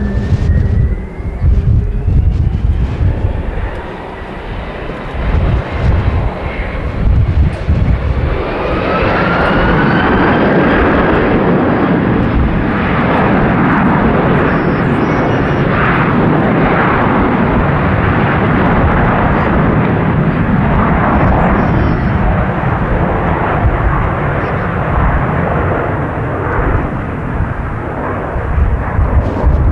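Airbus A330-200F freighter's Pratt & Whitney PW4000 turbofans spooling up to takeoff thrust: a whine rising in pitch over the first several seconds, then a loud, steady roar as the takeoff roll gets under way.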